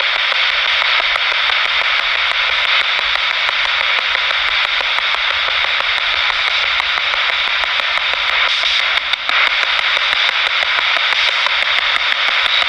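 Steady radio static from a handheld spirit box, a radio that scans through stations, hissing loudly with a fast run of faint clicks as it sweeps.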